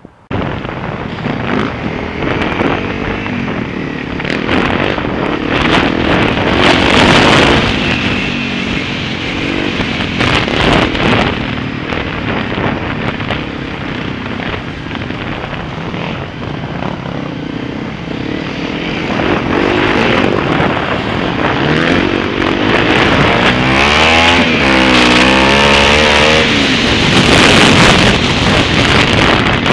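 Honda CRF250L's single-cylinder four-stroke engine running while the bike is ridden, its pitch rising and falling with the throttle. It revs up and down in quick waves about two-thirds of the way through. Wind hisses on the microphone throughout.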